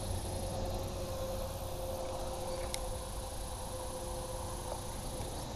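Outdoor ambience by a pond: a steady high insect buzz over a low rumble, with a single sharp click a little under three seconds in.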